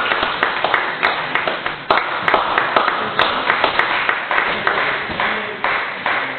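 Table tennis balls clicking rapidly and irregularly off bats and tables, echoing in a large sports hall.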